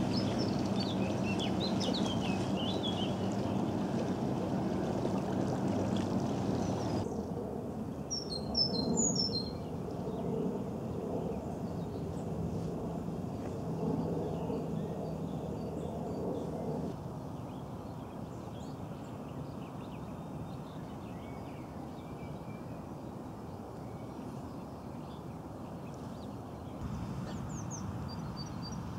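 Outdoor ambience of birds chirping and calling over a steady low engine hum. The hum stops abruptly about seven seconds in, and a short burst of loud bird chirps follows. After that there is quieter soft background noise with scattered bird calls.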